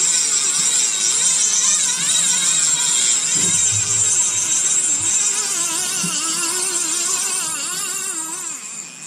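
Fishing reel's drag buzzing steadily as a hooked sturgeon runs and pulls line off the spool, fading near the end.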